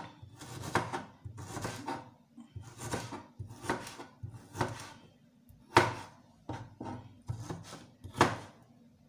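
Kitchen knife dicing ginger on a plastic cutting board: about ten sharp chops at an uneven pace, roughly one every half second to a second.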